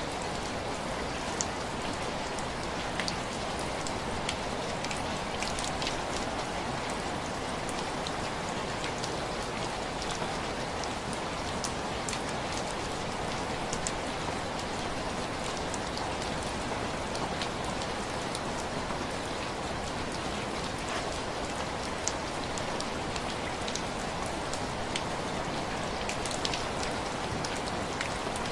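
Steady heavy rain, with scattered sharp crackles of a wood fire every second or two.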